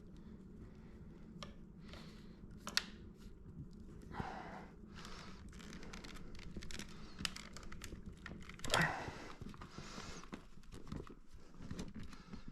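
Plastic parts of a Shark Rotator vacuum hose and handle being handled and fitted back together: scattered light clicks and taps, with a few short rustling swishes.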